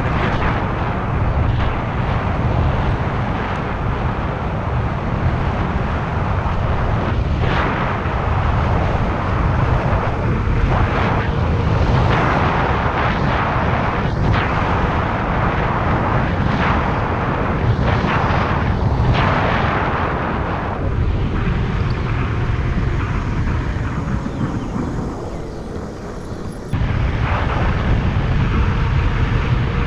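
Wind rushing over the microphone and tyre rumble from a fat-tyre electric bike riding at speed. It eases for a couple of seconds near the end, then comes back abruptly.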